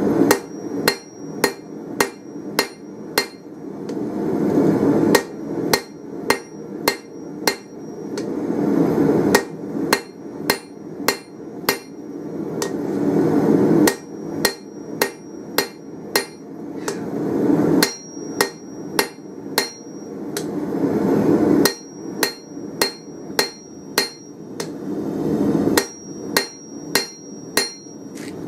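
Hand hammer striking red-hot round steel bar on an anvil while drawing out a taper, in runs of five to seven ringing blows about two to three a second. Between the runs a low rushing noise swells up.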